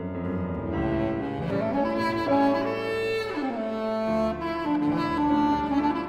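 Saxophone quartet music: several voices holding sustained notes together, with some lines sliding up and down between pitches.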